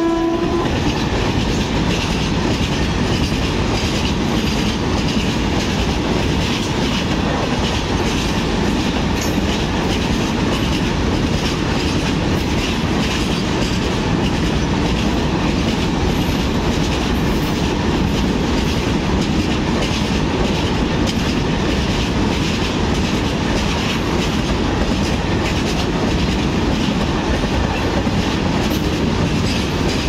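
A train rolling past at close range: a steady rumble with wheels clattering over the rail joints. A train horn cuts off about half a second in. For much of the time the passing cars are the BTPN tank wagons of a freight train.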